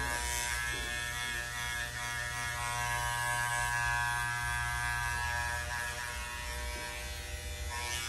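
Electric hair clippers running with a steady, even buzz as they cut the short hair of a fade at the side of the neck. Short hissy rustles come about half a second in and again just before the end.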